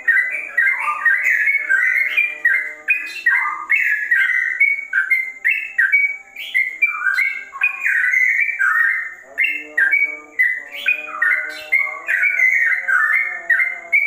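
Yellow-vented bulbul (trucukan) singing a rapid, unbroken stream of short whistled notes that slur up and down, several a second, a continuous song that the owner likens to a straw-headed bulbul's.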